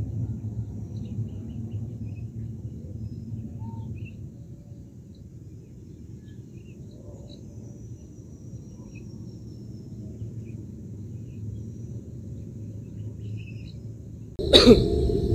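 Outdoor mountain ambience: a steady low rumble with faint scattered bird chirps and a thin high insect-like tone. Near the end a much louder noise starts suddenly.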